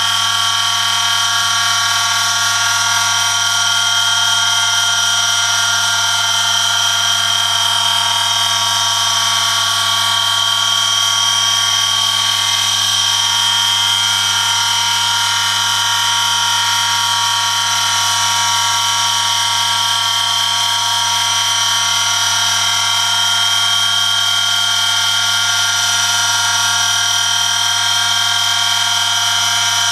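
Oil friction-test rig running under a 1 kg load: an electric motor turns a steel shaft against a metal test sample, the contact lubricated with engine oil. It makes a loud, unbroken high-pitched whine of metal rubbing on metal over a low motor hum.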